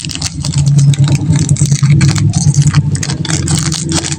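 Plastic candy wrapper crinkling in close-up, a dense run of irregular crackles over a steady low hum.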